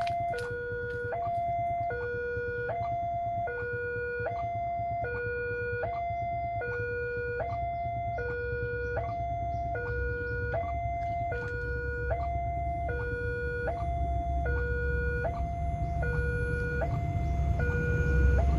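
Railway level-crossing warning alarm sounding its two-tone signal, a higher and a lower electronic tone alternating about every two-thirds of a second, which warns that a train is due. A low rumble grows louder over the last few seconds as the train approaches.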